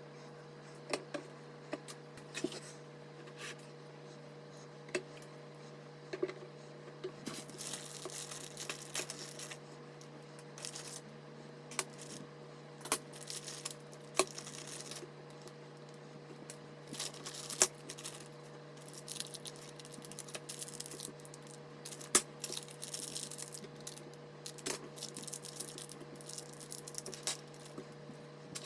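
Hands handling computer parts and their packaging: scattered clicks and knocks, with stretches of rustling and tearing of plastic or paper wrapping, over a steady low hum.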